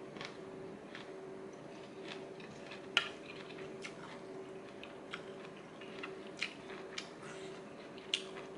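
Quiet chewing, with a few scattered light clicks of a metal fork and spoon against a plate; the sharpest click comes about three seconds in. A faint steady hum runs underneath.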